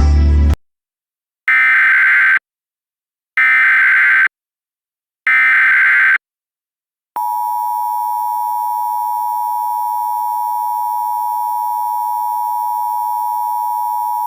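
Emergency Alert System tones: three bursts of SAME header data, each about a second long with a second's silence between them, then from about seven seconds in the steady two-tone EAS attention signal. Together they mark the start of an emergency alert broadcast, here a tornado warning.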